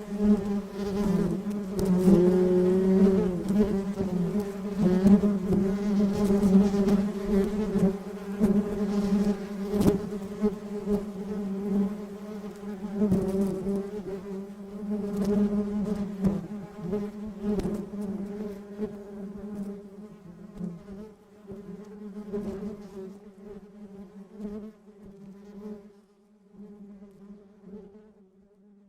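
A bee buzzing: a steady hum with slight wavers in pitch, growing quieter over the last several seconds.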